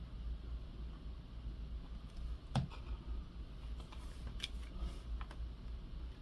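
Small handling sounds of paper crafting on a tabletop: one sharp knock a little over two seconds in, then a few lighter clicks and taps, over a steady low hum.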